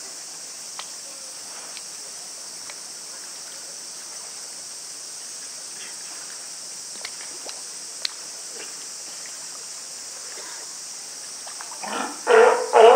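California sea lion calling: a quick run of loud, barking calls near the end, over a steady high hiss.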